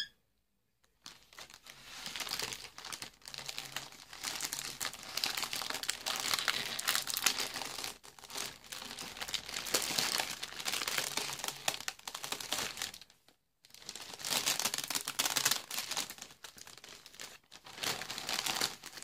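Plastic packaging crinkling and rustling as it is handled by hand. The sound starts about a second in, breaks off briefly about two-thirds of the way through, then resumes.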